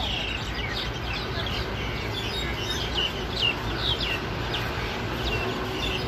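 Wild jalak Nias, a starling, calling busily: a quick run of short, sharp whistled notes, many sliding downward, over a steady low background rumble.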